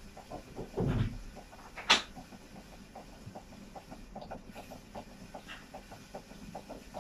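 Eating sounds at a table: a dull thump about a second in, a sharp clink of dishware about two seconds in, and faint small ticking sounds.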